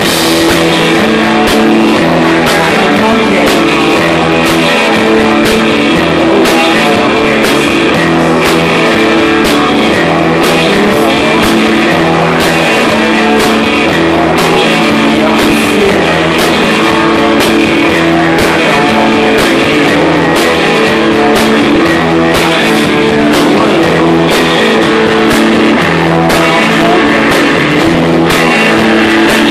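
Rock band playing live: guitars and a drum kit keeping a steady beat, with a man singing into a microphone.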